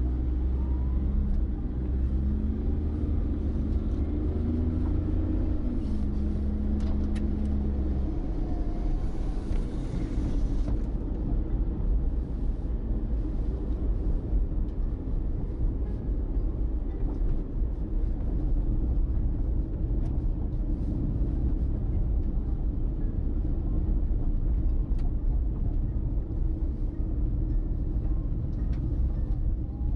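Car engine and road rumble heard from inside the cabin. For about the first eight seconds the engine holds a steady low hum, then it gives way to a broader, uneven rumble as the car rolls on.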